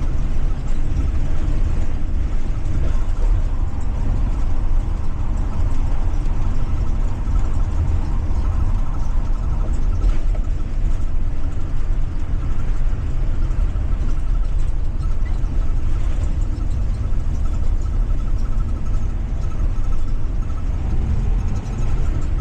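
A 2023 Blue Bird Vision school bus under way, heard from inside. Its Ford 7.3 gasoline V8 is running with a steady low rumble under road noise.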